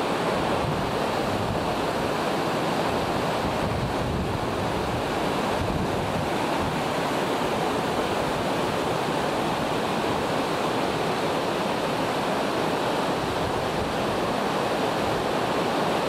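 Large waterfall, tens of metres high, pouring into its pool: a steady, even rush of falling water.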